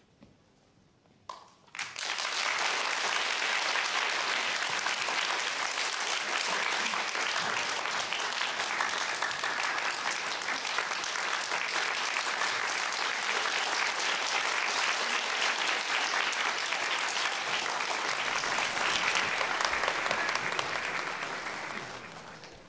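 Theatre audience applauding at the end of a guzheng piece: dense, even clapping that starts abruptly about two seconds in and dies away near the end.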